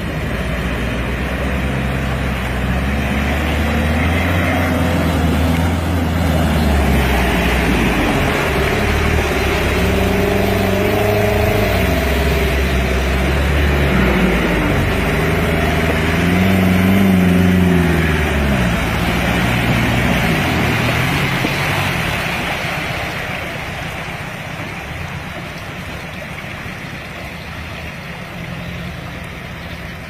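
Agrale Marruá 4x4's diesel engine working under load as it tows a pickup through deep mud, with a wash of churning mud and water. It grows louder as the vehicles come close about halfway through, the engine pitch bending as they pass, then fades as they drive away near the end.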